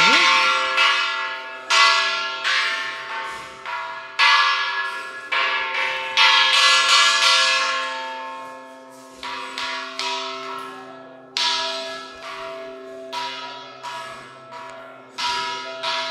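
Large cast bronze church bells struck by hand with a small wooden mallet, over and over at irregular intervals about a second apart. Each strike rings on over the last, with a low steady hum underneath.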